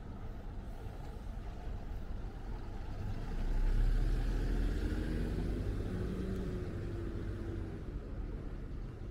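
Motor vehicle running on a road, with a steady low rumble. It swells about three and a half seconds in, and an engine note holds over the next few seconds before easing.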